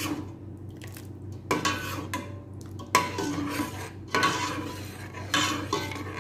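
A ladle stirring molokhia stew in a stainless steel pot, scraping around the pot with four louder clinks against its side.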